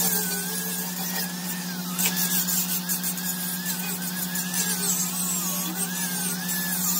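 Corded electric die grinder running at speed and grinding heavy steel plate around a hole, its high whine wavering up and down as it is pressed into the metal, over a steady low hum. It is cleaning the steel back ready for welding.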